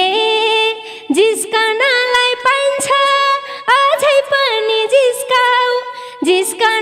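A woman singing alone without accompaniment, in a high voice with frequent sliding notes.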